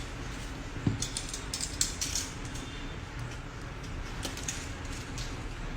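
Smartphone retail box and packaging being handled and opened by hand: light clicks, taps and scratchy rustles in two clusters, about a second in and again near four seconds in.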